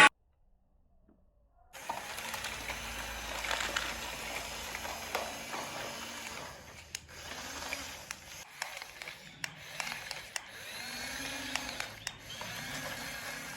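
Small electric motors and plastic gears of a toy RC excavator whirring, starting after a short gap of silence, with scattered sharp clicks and a pitch that wavers as the arm or tracks move.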